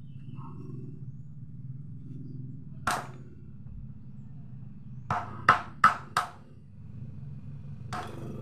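A wood chisel being struck to cut a mortise in timber: one sharp blow about three seconds in, then four quick blows in just over a second, and another near the end, over a steady low hum.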